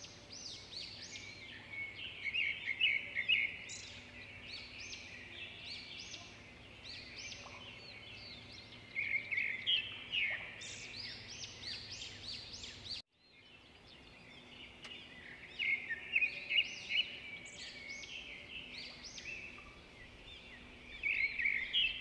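Many small birds chirping and twittering together in a dense, busy chorus. It breaks off completely for a moment a little past halfway, then carries on the same way.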